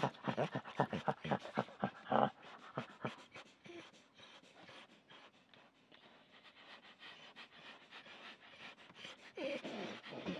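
Dog panting in quick, short breaths, loudest in the first couple of seconds and fading to faint by the middle, picking up again near the end.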